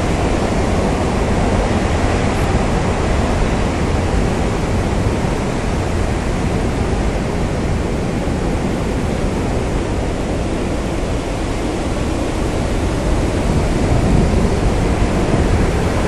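Hurricane wind blowing: a loud, steady rushing noise that swells a little near the end.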